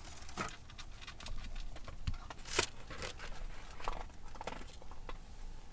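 Light handling noises from an open cardboard donut box as donuts are lifted out: scattered taps and rustles, with one louder crackle about two and a half seconds in.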